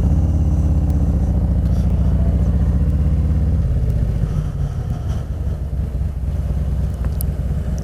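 Harley-Davidson motorcycle's V-twin engine running while riding: loud and steady for about the first three and a half seconds, then softer as the throttle eases.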